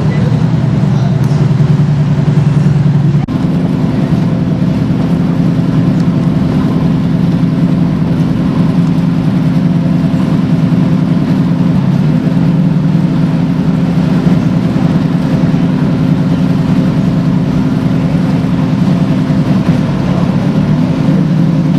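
Police patrol boat's engine running steadily at low speed, a deep even hum. Its tone shifts abruptly about three seconds in and wavers briefly around twelve seconds.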